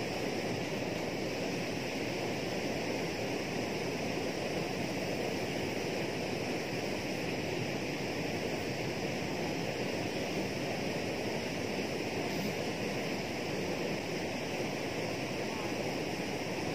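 Steady rushing of flowing water at a dam, an even noise that neither rises nor falls, with no distinct knocks or calls.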